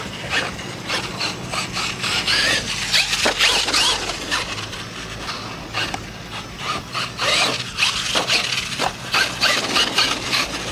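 A radio-controlled monster truck driven hard: its drivetrain whines up and down in pitch as it revs, its tyres scrabble, and its chassis knocks on landings.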